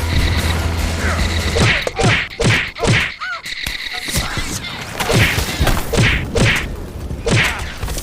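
A string of comedic cartoon-style sound effects: about a dozen whacks and thuds, many with a quick falling pitch swoop, over background music. A low drone stops a little under two seconds in.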